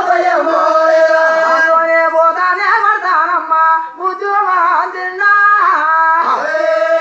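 A voice singing long held notes that bend and waver in pitch, with short breaks between phrases and no accompanying beat.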